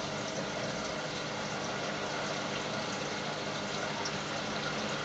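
Reef aquarium's water circulation running: a steady hiss of moving water with a low pump hum.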